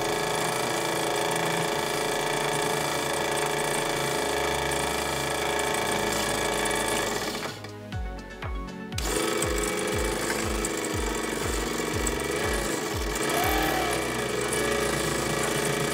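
3D-printed PLA prototype winch running under its motor, its worm gear and plastic gear train giving a steady whine with a rattle; it stops for about a second and a half about halfway through, then runs again. Background music with a steady beat plays underneath.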